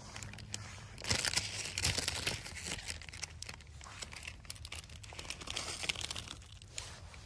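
Small cooking fire crackling and hissing under a steel pot of water with ramen noodles in it, with dense irregular pops, busiest about one to three seconds in.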